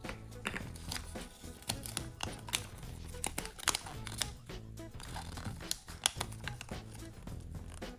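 Background music, with the rustle and crisp clicks of a small rolled paper leaflet from a plastic surprise-egg capsule being unrolled and smoothed flat by hand.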